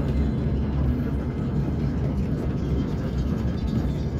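DR1A diesel multiple unit heard from inside the passenger car as it rolls slowly: a steady low rumble of the diesel engine and running gear.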